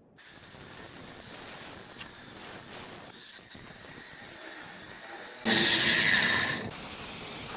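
Cutting torch hissing steadily on a steel truck frame, then a louder rush of about a second a little over five seconds in as the cutting jet blows molten weld away from a welded-on motor mount.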